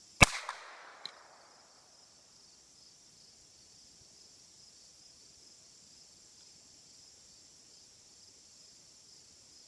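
A single .22 LR rifle shot, sharp and loud, echoing out over about a second, with a short high ping about a second after it. Crickets or other insects chirp steadily and high-pitched throughout.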